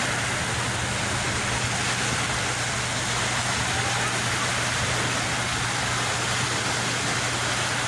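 Steady rush of sea waves and surf, with a steady low hum underneath.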